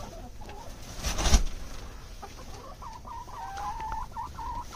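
Domestic hens clucking softly in a quick string of short, wavering notes through the second half. A brief bump or rustle comes about a second in.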